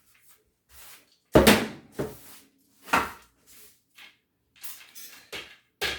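Handling noises: a string of separate knocks, clunks and scrapes as objects are moved about, the loudest about a second and a half in.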